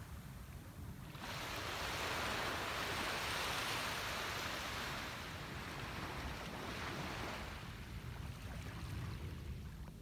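Small waves washing in over a flat sandy beach at low tide. A hiss of water swells in about a second in and fades over a few seconds, with a second, smaller wash near seven seconds, over a steady low rumble.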